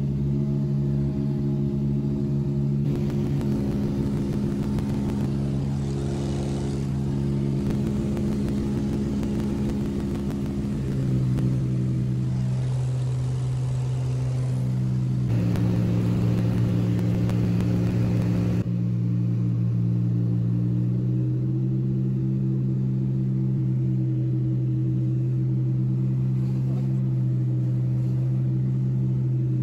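Single-engine light aircraft's piston engine and propeller droning steadily in flight, heard from inside the cabin. The hum's pitch steps slightly up or down a few times.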